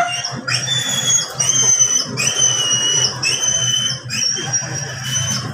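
Belgian Malinois whining during mating: a high, thin whine repeated in short drawn-out cries about every three-quarters of a second, over a steady low hum.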